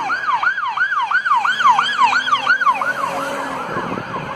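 Toy police car's electronic siren sounding a fast up-and-down wail, about two and a half sweeps a second, fading out near the end.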